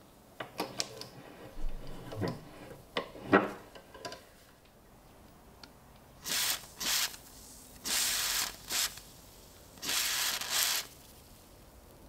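Metal clicks and knocks as the rusty steel lighter is set in a bench vise and clamped. Then an aerosol can with a straw nozzle sprays the lighter in four short hissing bursts, the last two the longest.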